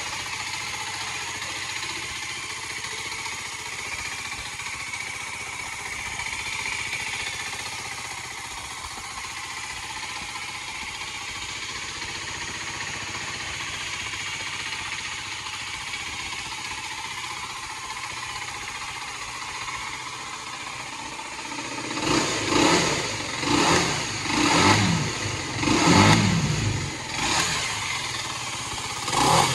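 Aprilia Tuono 125's single-cylinder four-stroke engine idling steadily, then, after about twenty seconds, revved in a run of short throttle blips about once a second.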